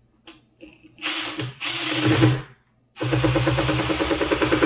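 Milwaukee cordless impact driver driving a screw into the underside of a garbage disposal: a short run about a second in, then a longer run of rapid, even hammering from about three seconds.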